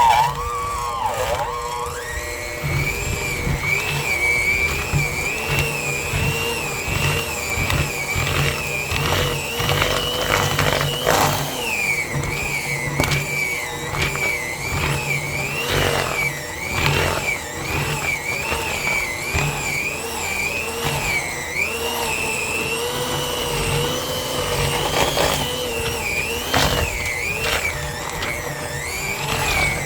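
Electric kitchen mixer running, churning a thick homemade bird-suet mixture of seeds, oats and corn flour; it starts about two seconds in and its whine wavers up and down in pitch as the load on the beaters changes.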